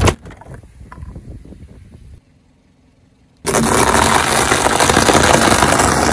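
Something crushed under a car's tyre: a loud crack at the start, then scattered crunching that dies away. After a short pause a car engine runs loudly and steadily from about three and a half seconds in.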